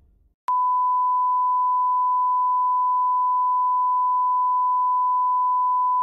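A single unbroken test-tone beep, the pure steady tone that is played over TV colour bars. It starts abruptly about half a second in and holds at one pitch without change.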